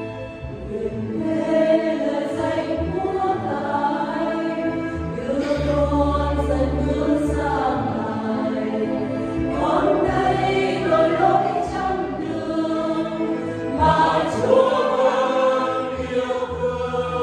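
Mixed men's and women's choir singing a Vietnamese Catholic hymn in parts into handheld microphones, with an electronic keyboard accompanying and holding sustained bass notes beneath the voices.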